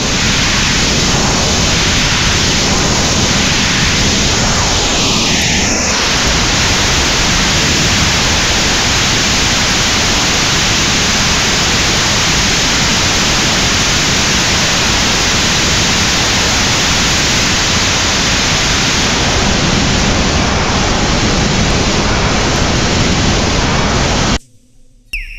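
Loud, dense wall of electronic noise from a live noise-music set. It holds steady, with a brief gliding tone inside it about five seconds in, then cuts off suddenly near the end.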